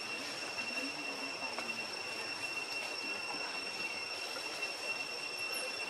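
Steady high-pitched insect drone: one constant tone with a fainter, higher one above it, over a soft background hiss.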